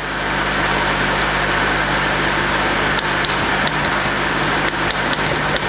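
A steady mechanical hum and hiss, with a few light, sharp clicks in the second half, as metal dissecting tools touch a glass petri dish.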